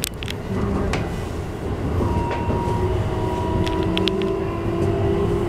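Running sound heard from inside a Keikyu New 1000 series electric train car: a steady rumble of wheels on rail with a few sharp clicks over rail joints. About two seconds in, the whine of the car's Toyo IGBT-VVVF inverter motor drive comes in as several steady tones.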